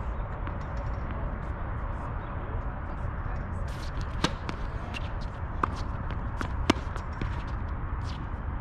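Tennis balls struck by rackets and bouncing during a rally: sharp pops about a second apart from about four seconds in, the loudest a little under seven seconds in, over a steady low background noise.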